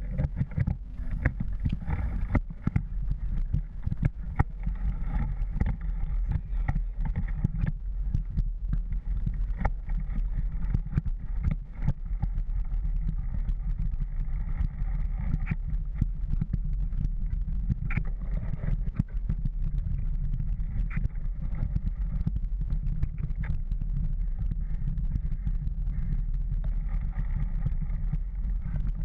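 Mountain bike rolling over a dirt and leaf-covered trail, picked up by a GoPro on the rider. A steady low rumble of wind and tyre noise runs throughout, with frequent clicks and rattles as the bike goes over bumps.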